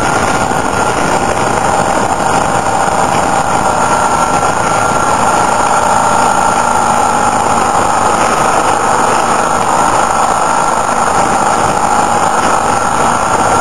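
Motorcycle engine running at a fairly steady pitch while riding, heard from on board the bike, mixed with a steady rush of wind noise.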